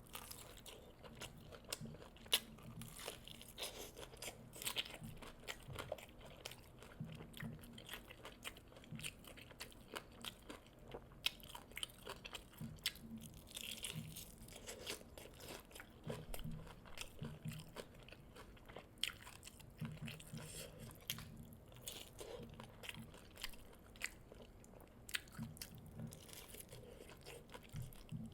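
Close-up eating sounds of someone biting into and chewing fried chicken drumsticks, with irregular crunches and sharp mouth clicks.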